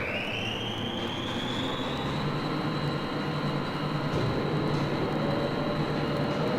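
A high mechanical whine rises in pitch over about two seconds, then holds steady over a low rumble. Near the end a second, lower whine begins to rise. This is a vehicle engine or motor winding up.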